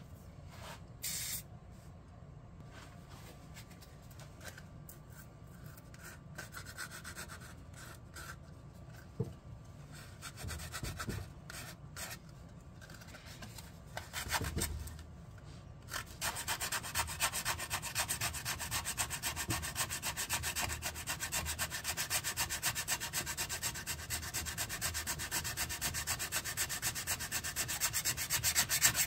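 Hand sanding a cherry burl blank with a folded sheet of sandpaper, over a glue-filled crack in the wood: rapid, steady back-and-forth rubbing strokes that start a little past halfway. Before that, only scattered small handling sounds.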